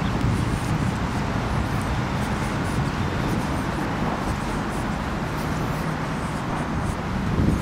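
Steady outdoor rumble of wind buffeting the microphone, mixed with street traffic noise.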